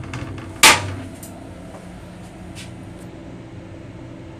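Plastic toilet seat lowered onto the bowl, landing with one sharp clack less than a second in, with a few faint clicks around it. A steady hum from the railcar's ventilation and running gear lies underneath.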